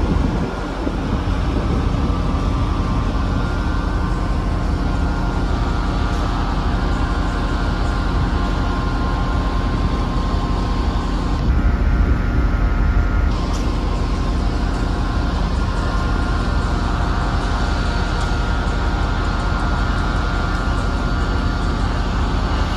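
A train running steadily at the station platform: a continuous low hum with several held steady tones above it, a little louder for a couple of seconds about halfway through.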